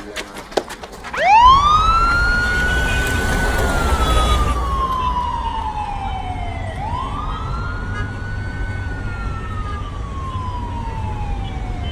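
Police van siren wailing: each cycle rises quickly, holds, then falls slowly, restarting about every five and a half seconds, over a low vehicle rumble. A few sharp clicks come just before the siren starts.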